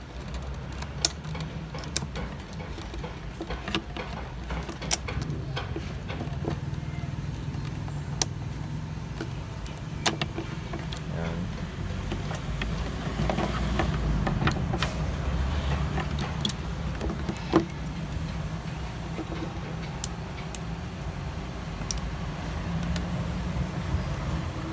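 Scattered sharp clicks and knocks of hand work on a car side-mirror assembly being taken apart, over a steady low hum.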